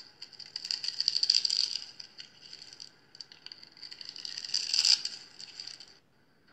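A knife cutting into a bar of pink soap scored into a grid of small cubes, giving a crisp, crackly crunching as the cubes break away. There are two main runs of crunching, starting about half a second and four seconds in, with lighter crackles between, and it stops about a second before the end.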